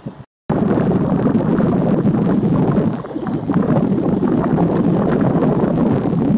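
Loud, rough wind buffeting the microphone. It starts abruptly after a brief dropout near the start and dips briefly about halfway through.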